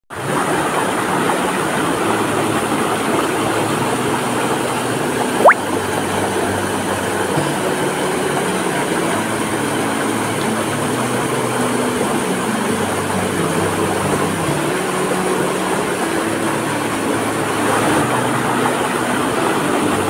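Stream water rushing and splashing over rocks in a waterfall's small cascades, a steady, unbroken rush. There is one sharp knock about five and a half seconds in.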